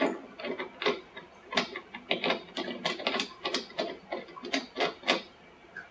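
Brass thread adapter being screwed by hand onto the brass threads of a shower valve body, giving a run of irregular metallic clicks and scrapes, about four a second, that stop near the end. The adapter is taking the thread, showing it is the matching one.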